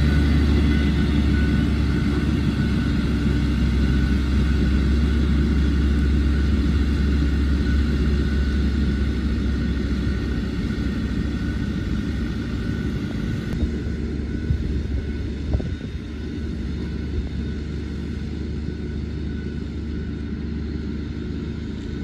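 Diesel engines of a motor grader and a single-drum road roller running steadily, with a deep low hum, growing gradually quieter as the machines move off down the road.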